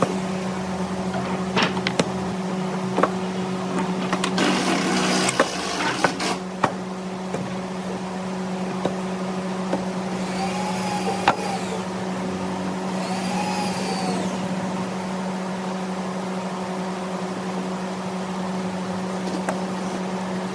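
Electric motor of a woodworking machine running steadily with a constant hum, with scattered sharp knocks and a short burst of noise about four seconds in.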